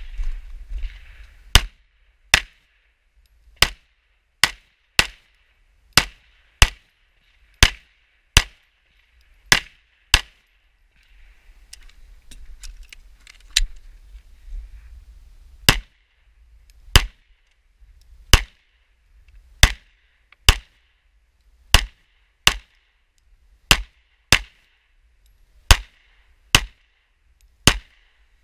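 Pistol shots on a firing line, about two dozen sharp reports at an irregular pace, often in quick pairs under a second apart, with fainter shots from other positions in between.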